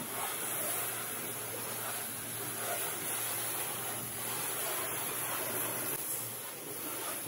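High-pressure washer wand spraying water onto a car's engine bay and front bumper: a steady hiss of spray over a steady low hum.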